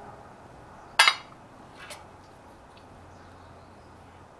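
Metal pot lid lifted off a cooking pot: one sharp metal clank about a second in, then a lighter clink about a second later.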